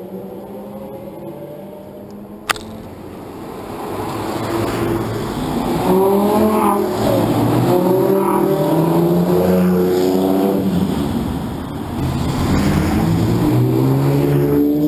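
Lamborghini supercars drive past one after another, a Gallardo V10 and then a Diablo V12, their engines revving up in pitch as they pull by close. A single sharp click about two and a half seconds in.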